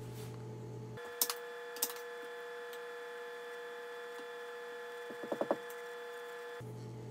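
A metal spoon scooping flour out of a stainless steel bowl into a blender jar: a few light taps and clinks about a second in, then a quick run of four or five clinks a little past five seconds, over a faint steady hum.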